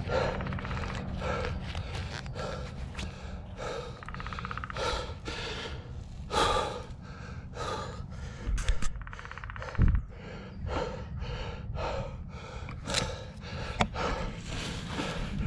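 A mountain biker's rapid, rhythmic panting from the effort of pedalling, over a low rumble, with a couple of thumps about nine to ten seconds in.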